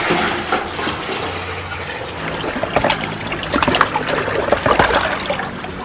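Water poured from a plastic paint bucket into another bucket, splashing and sloshing. It starts suddenly and keeps going with many small splashes.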